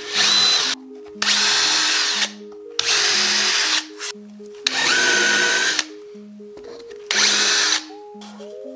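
Cordless drill boring screw holes into a quarter-inch MDF fan-mounting frame, run in five short bursts of about a second each with pauses between.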